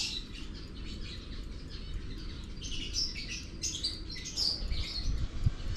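Small birds chirping in short, high, quick runs of calls, strongest in the middle of the stretch, over a steady low background rumble.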